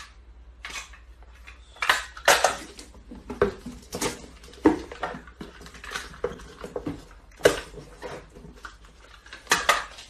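Packing tape ripped off a handheld tape dispenser and cardboard boxes knocked and set down, in a string of short, sharp rips and knocks.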